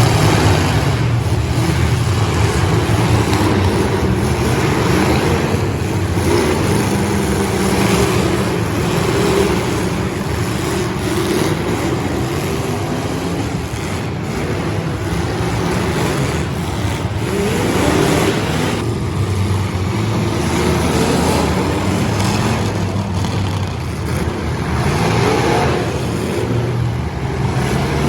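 Several demolition derby car engines running at once, revving up and down with a rising rev about two-thirds of the way in.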